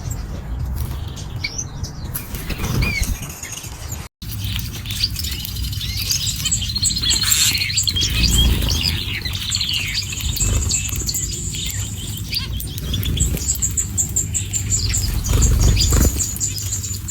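Many small birds chirping and twittering at once, quick high chirps overlapping over a steady low rumble. The sound drops out for an instant about four seconds in.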